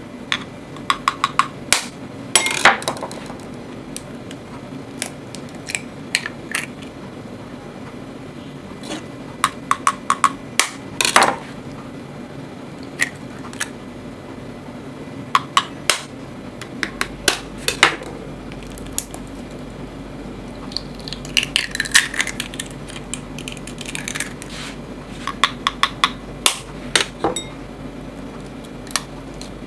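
Brown eggs being tapped and cracked open one after another over a ceramic bowl: clusters of sharp taps and cracks every few seconds, a group for each egg, over a faint steady hum.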